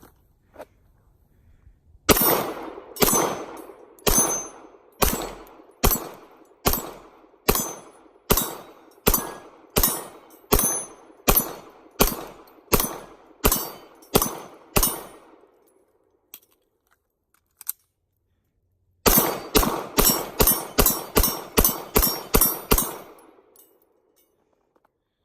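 9mm Glock 19 pistol firing two strings of shots. First comes a steady string of about fifteen shots under a second apart; after a pause of a few seconds comes a rapid string of about eleven shots, roughly three a second.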